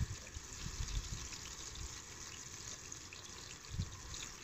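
Walleye pieces frying in olive oil in a pan on a camp stove, a faint steady sizzle, with wind gusting on the microphone near the start and again near the end.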